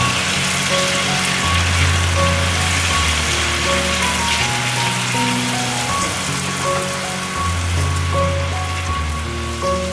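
Pieces of boneless chicken thigh sizzling and being stirred with a spatula in a hot cast-iron pot. A steady frying hiss plays under background music with a slow melody and bass line.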